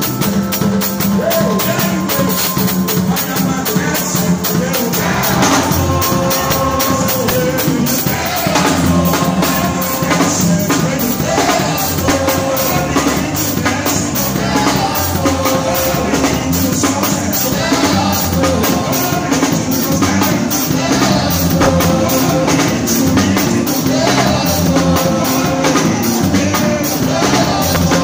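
A live gospel praise band playing: a drum kit with cymbals heard close up, keeping a steady beat under a guitar, a bass line and singing voices.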